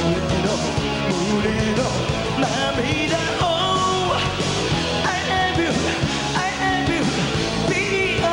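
Rock band playing live: a male lead vocal over electric guitar, bass guitar and drums, at a steady loud level.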